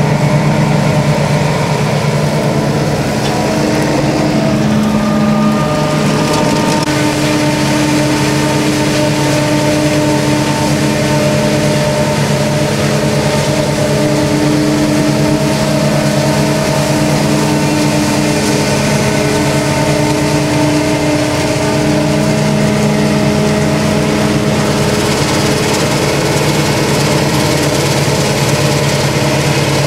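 New Holland FR9090 self-propelled forage harvester (825 hp) running under load while chopping maize, with a Case IH tractor hauling the silage trailer alongside: a loud, steady machine drone with several held tones that shift slightly in pitch now and then.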